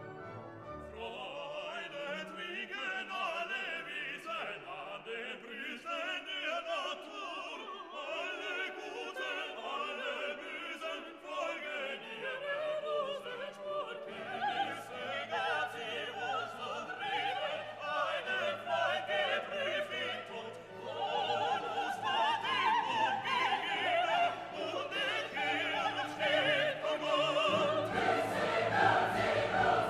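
Classical music: an orchestra with operatic singing, growing louder about two-thirds of the way through.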